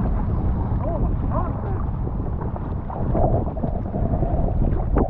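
Wind buffeting the microphone over choppy shallow sea water, with the splashes of a paddle stroking beside an inflatable paddle board.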